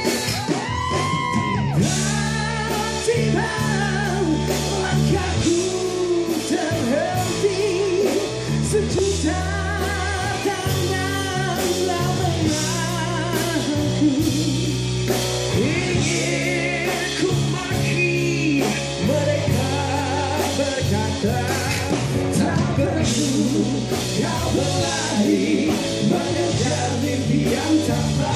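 Live pop-rock band performance: male vocals singing over electric guitar and a steady drum beat.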